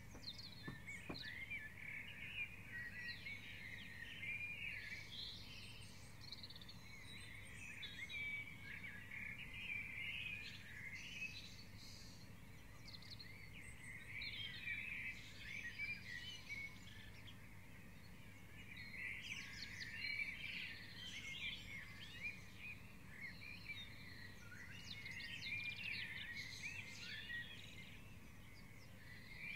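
Springtime dawn chorus: many songbirds singing at once, their chirps and trills overlapping, busier in spells, over a faint steady low hum.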